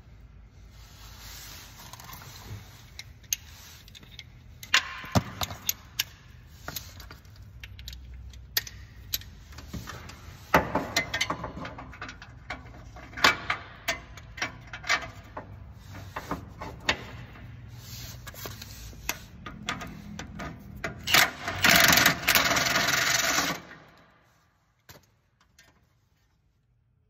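Hand ratchet clicking and metal tool clinking against exhaust bolts as the header is unbolted from the downpipe on a Mazda Miata, in irregular strokes. Near the end comes a louder rasping noise lasting about two seconds.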